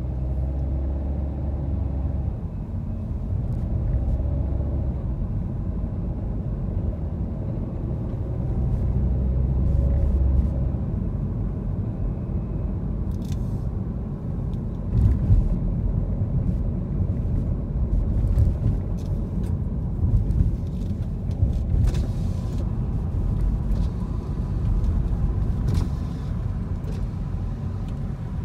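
A car driving: a steady low engine hum for about the first ten seconds, then rougher low road rumble with scattered short clicks.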